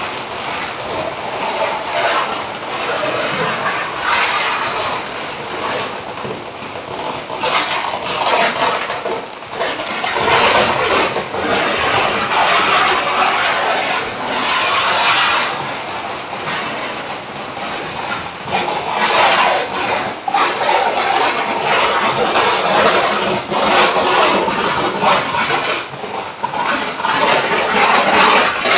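A long string of firecrackers going off in a rapid, continuous crackle of bangs, easing briefly about sixteen seconds in and then building again.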